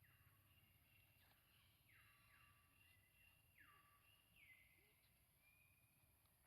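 Very faint animal calls: about five high calls, each sliding down in pitch, over a low steady hum.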